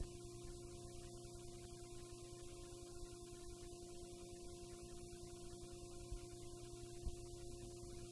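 Steady low electrical hum with a faint hiss on a videotape's audio track, and one faint tick near the end.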